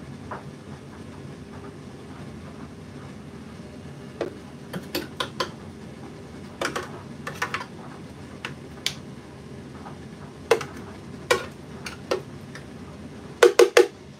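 Metal teaspoon clinking and tapping against the blender jar while stirring peaches and honey: sharp clinks in small clusters, the loudest group of three near the end, over a steady low hum.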